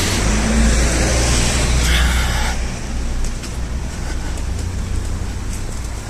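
A car driving past on the street, a low engine and tyre rumble that eases off after about three seconds, over general street noise.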